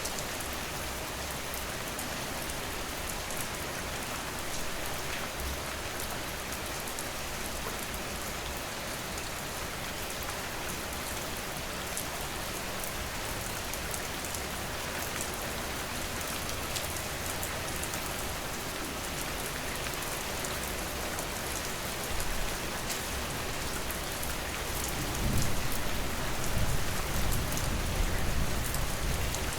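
Steady rain falling: a dense, even hiss with scattered ticks of drops. Near the end a low rumble swells and the whole sound grows louder.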